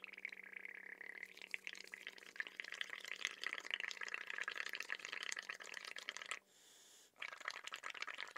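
Air blown through a drinking straw into a cup of bubble paint made of tempera paint, dish soap and water: a dense, fizzy bubbling as foam builds up over the rim. It stops for about half a second a little over six seconds in, then starts again.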